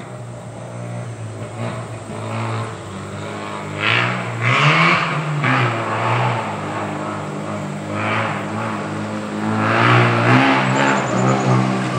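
Mazda RX-7 rally car's rotary engine revving up and easing off again and again as it is driven hard around a dirt course, with harsher, louder bursts about four seconds in and again near the end.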